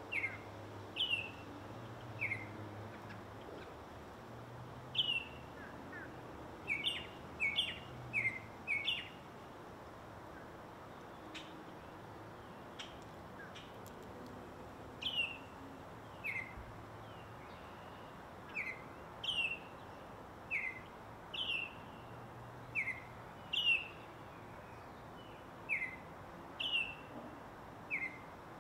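A songbird calling over and over: short, sharp notes that slide downward, alternating between a higher and a slightly lower note, about one a second, with a pause of several seconds partway through. A steady faint hiss lies underneath.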